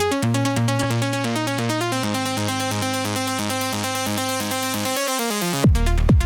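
Instrumental electronic dance music: a fast, steady synthesizer arpeggio over a held bass line. The bass drops out about five seconds in, then heavy kick drums with a falling pitch come in just before the end.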